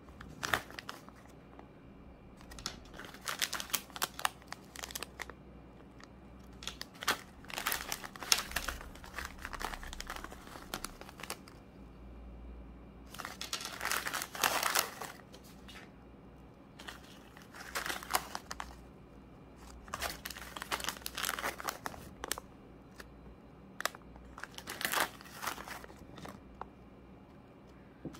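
Small plastic zip bags crinkling as they are handled and shuffled, in irregular bursts with short pauses between.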